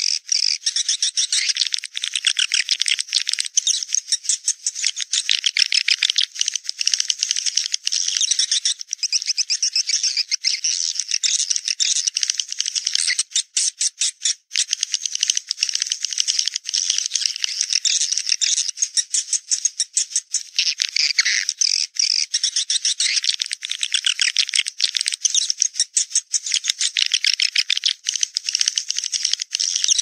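Swiftlet lure-call recording: many swiftlets giving dense, continuous, high-pitched chattering trills. This is the kind of call played at swiftlet nest houses to draw the birds in to roost and nest.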